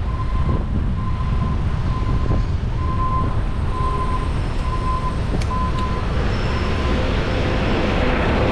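Steady low rumble of wind and traffic while riding a bicycle past a line of stopped cars. An electronic beep repeats about once a second and fades out near the end. The noise grows fuller in the last seconds as the bike pulls up alongside an idling cement mixer truck.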